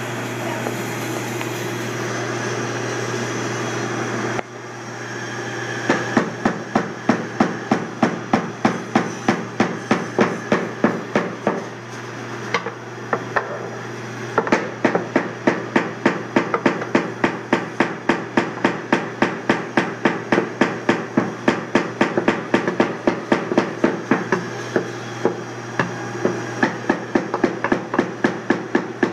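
A hammer tapping a long screw into a wooden board, in quick light strikes about two to three a second, starting a few seconds in, with a short pause partway through.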